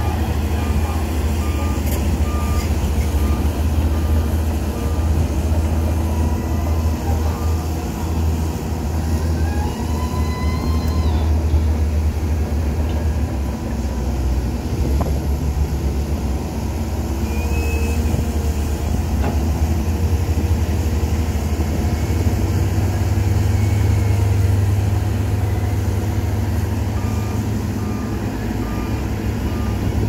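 Heavy diesel engines of a CAT 320B excavator and a Shantui DH17 bulldozer running with a deep, steady rumble. A machine's travel or reversing alarm beeps evenly in the first few seconds and again near the end.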